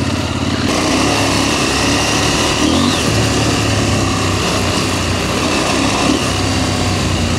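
KTM 890 Adventure R's parallel-twin engine running at a steady pace on a gravel road, heard from on the bike, under rushing wind and road noise that grows about a second in.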